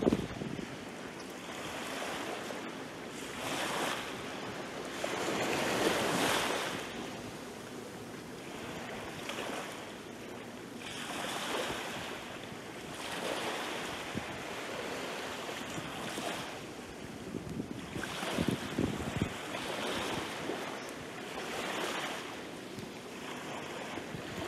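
Small waves washing up onto a sandy beach and drawing back, a rush of surf every couple of seconds, the loudest about a quarter of the way in.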